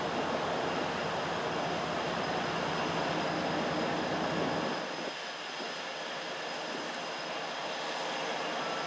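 CSX GE diesel-electric freight locomotives approaching with their engines running, a steady rumble and roar; the deepest part of the rumble drops away about halfway through.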